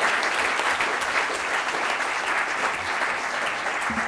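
Audience applauding: dense, steady hand-clapping from a lecture-hall crowd.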